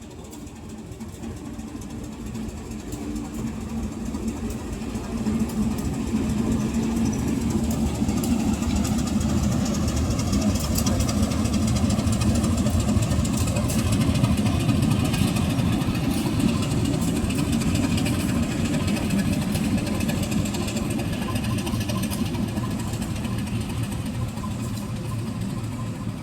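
Diesel locomotive engine running as it approaches and passes: it grows steadily louder over the first several seconds, holds loud, then slowly fades.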